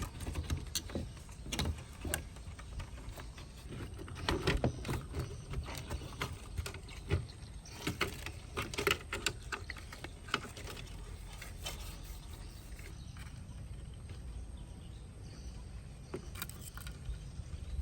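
Workshop handling noises: scattered clicks, taps and light scraping from parts and tools being handled, thickest between about four and eleven seconds in, over a low steady hum.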